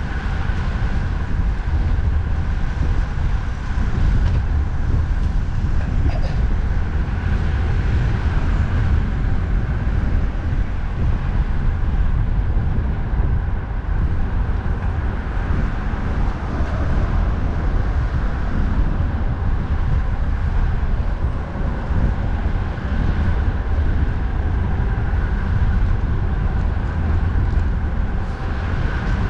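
Wind buffeting the microphone of a rider cycling into a strong wind, a steady low rumble, with continuous road and traffic noise beneath it.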